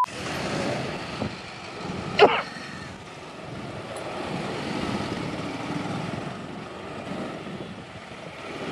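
Slow city traffic heard from a motorcycle-mounted camera: steady wind and road noise with the engines of scooters and cars close by. About two seconds in, a brief, sharp, rising chirp is the loudest sound.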